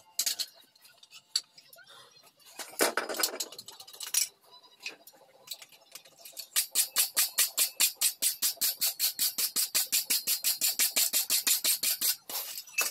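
Steel wire brush scrubbing a freshly forged, still-hot steel plate on an anvil in fast, even strokes, about five a second, brushing off the forge scale. Before that, a few scattered light clicks and knocks.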